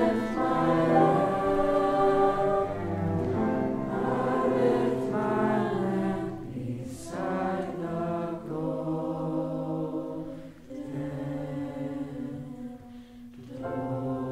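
Mixed choir singing long held chords in phrases, with brief breaths between phrases.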